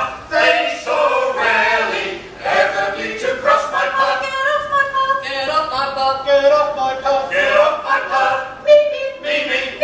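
Mixed male and female vocal group singing a cappella in harmony, with long held chords through the second half.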